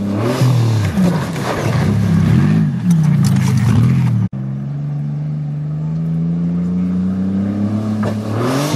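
Pontiac sedan's engine revving hard off-road, its pitch swinging up and down for the first four seconds. It cuts out abruptly, then comes back as a steadier note that slowly climbs.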